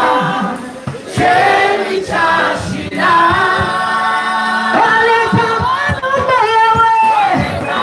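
Gospel praise-and-worship singing: a woman leads into a microphone, with a group of backing singers and other voices singing along.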